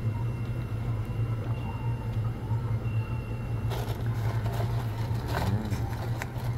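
A steady low hum runs throughout. From about four seconds in come scattered clicks and rustles of a plastic cup lid and straw being handled.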